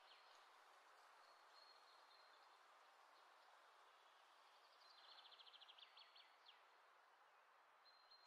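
Near silence: a faint steady hiss, with a brief run of rapid, high chirping clicks about five seconds in.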